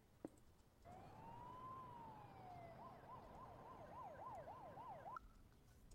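Faint police siren: one slow wail that rises and falls, then switches to a fast yelp of about three cycles a second and cuts off suddenly.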